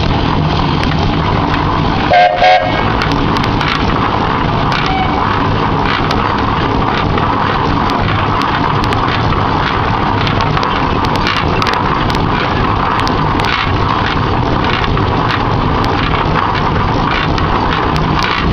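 1908 Peerless Model S steam traction engine running steadily. A steam whistle gives two short toots about two seconds in.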